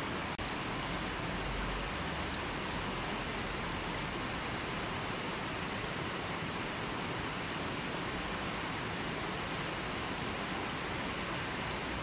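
Shallow mountain river rushing steadily over and around boulders, a constant even roar of water. A split-second dropout breaks it just after the start.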